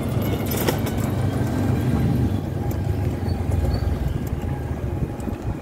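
Wind buffeting the microphone with a low, uneven rumble of road noise while riding along a street, with a brief clicking rattle about half a second in.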